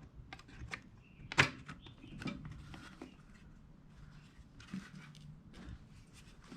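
Scattered small clicks and knocks of objects being handled, with one sharper click about a second and a half in, and some faint rustling.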